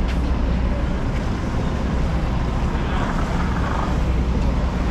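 Wind buffeting the microphone with a steady low rumble, mixed with city street traffic noise.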